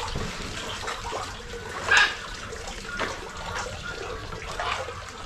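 Water splashing in a penguin pool as penguins swim after fish, with one louder splash about two seconds in.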